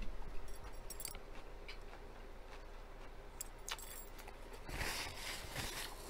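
Close-miked chewing with faint, scattered mouth clicks, then about five seconds in a paper napkin crinkles for about a second.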